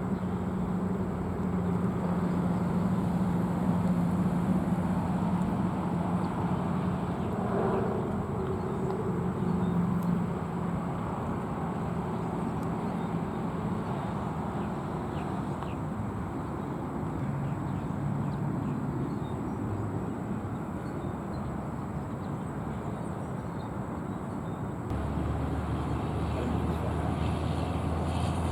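Steady motor-vehicle rumble with a low engine hum, which drops lower and grows a little louder near the end.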